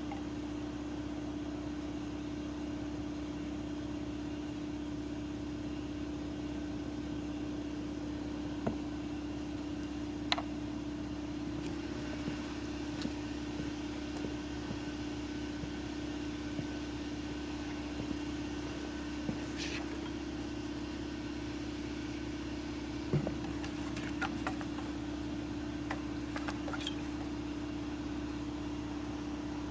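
Steady mechanical hum with a strong low tone, with scattered light clicks and knocks of tools on metal, a few of them bunched together about three quarters of the way through.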